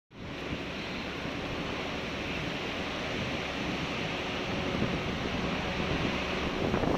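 Strong storm wind blowing steadily, buffeting the microphone.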